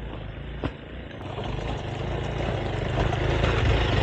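Single-cylinder adventure motorcycle riding up a rocky gravel trail toward the microphone, its engine note growing steadily louder as it approaches. A single sharp click comes about half a second in.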